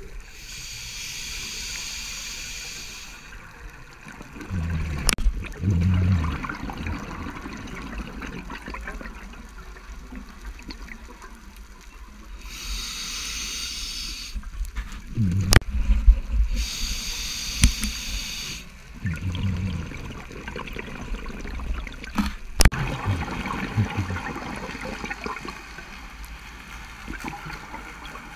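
Scuba diver breathing through a regulator underwater: a few breaths, each a hissing inhalation of about two seconds followed by a bubbling, gurgling exhalation, with a few sharp clicks between them.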